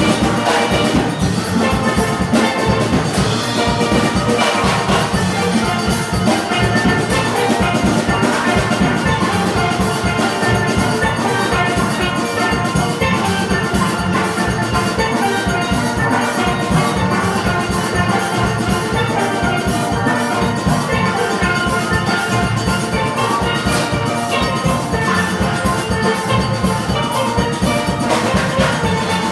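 Steel orchestra playing a tune on steelpans, with drums and percussion keeping a steady beat.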